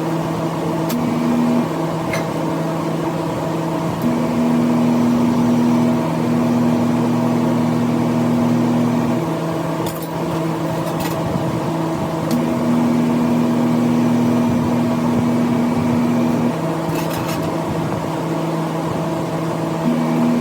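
Steady machine hum, with a second, higher-pitched tone that switches on and off in stretches of one to five seconds, and a few sharp clicks.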